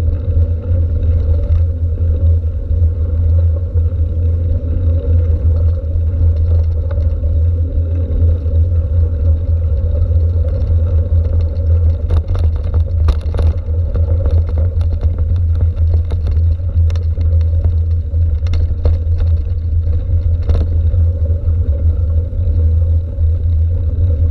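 A bicycle rolling fast over a gravel towpath, heard through a handlebar-mounted camera: a steady low rumble of wind and vibration with tyre noise on the gravel. From about halfway through, sharp clicks and clatters of stones and the bike jolting come as the path turns rougher.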